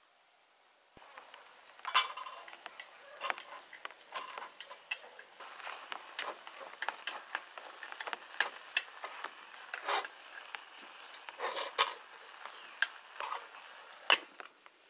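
Wooden chopsticks stirring cooked rice in an aluminium pot, with many quick clicks and scrapes against the pot's metal sides. Near the end the metal lid is set on the pot with a sharp clink.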